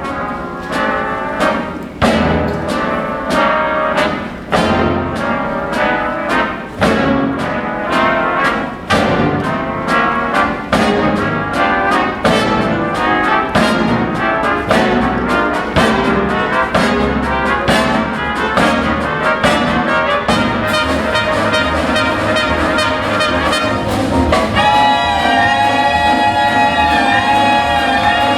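Jazz big band playing, its brass section punching out short accented chords about once a second, then holding long sustained chords near the end.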